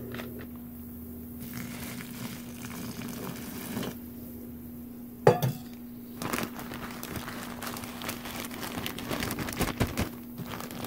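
Hot water poured into a plastic zip-top bag of dehydrated rice, then the bag crinkling and crackling as it is handled. A single brief knock about five seconds in.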